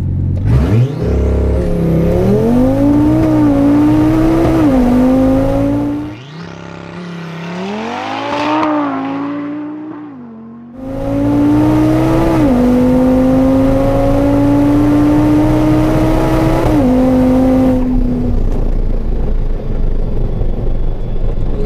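Audi TT RS's turbocharged five-cylinder accelerating flat out on a quarter-mile drag run, the engine note climbing and falling back at each upshift. It is heard mostly from inside the cabin, with a quieter stretch from the track edge as the car comes on. Near the end the engine note falls away, leaving wind and tyre noise as the car coasts.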